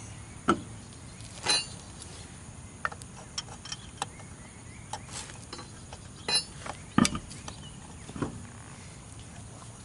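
Scattered metal clinks and knocks of a wrench and lug nuts being handled, a couple ringing briefly with a metallic tone; the sharpest knocks come about half a second in and about seven seconds in.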